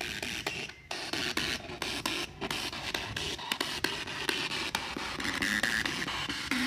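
Ghost-hunting spirit box sweeping through radio frequencies: a steady hiss of static broken by rapid clicks as it jumps from station to station, with a couple of brief dropouts.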